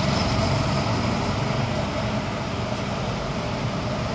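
Go-karts driving around the track, a steady motor drone with a constant whine held over it.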